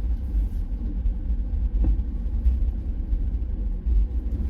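Low, steady rumble of a vehicle driving slowly over a rough, potholed gravel road.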